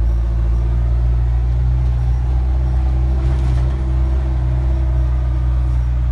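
GM Scenicruiser bus's diesel engine idling steadily, a deep even drone, with a faint brief hiss about halfway through.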